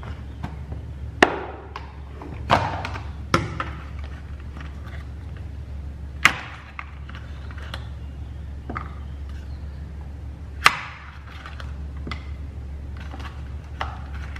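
Kitchen handling sounds: irregular sharp clicks and knocks of a metal spoon and a plastic tub as butter is scooped from its foil wrapper, over a steady low hum.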